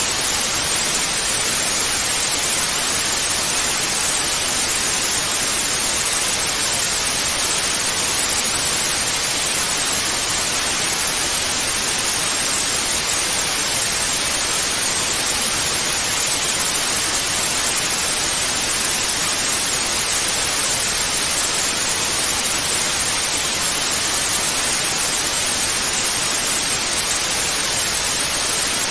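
Television static hiss, the snow-noise of an untuned analogue TV: a steady, even hiss without change.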